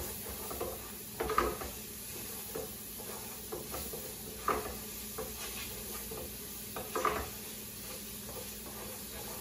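Wooden spoon stirring and scraping browned ground beef with taco seasoning around a skillet, in short strokes about every second, over a steady low sizzle from the pan.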